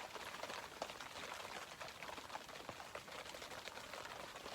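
Faint, dense pattering of many tiny ticks: snow grains hitting the ice-fishing tent's fabric.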